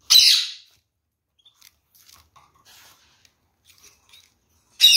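Red-crowned kakariki (red-fronted parakeets) pecking and cracking seeds in a seed tray: faint, scattered clicks of husks between two loud, brief bursts of noise, one at the start and one near the end.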